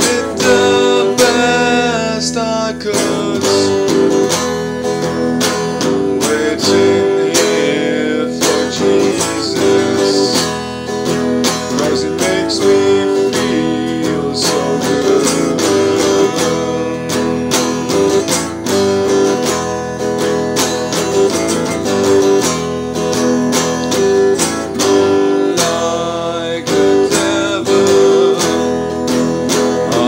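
Acoustic guitar strummed steadily, a continuous run of chords.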